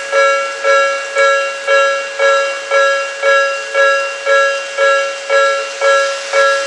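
Japanese railway level-crossing warning bell ringing steadily, about two electronic dings a second, signalling that a train is approaching.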